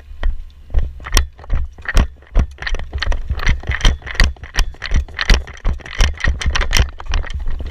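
Running footsteps, about two to three a second, with the player's airsoft rifle and gear rattling and knocking against the body at each stride.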